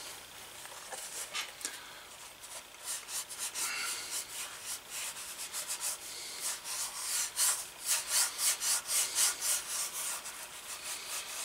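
Fingertips rubbing leather conditioner cream into a dyed leather holster, a soft dry swishing of skin on leather in repeated strokes. The strokes are faint at first and come louder, about two or three a second, in the second half.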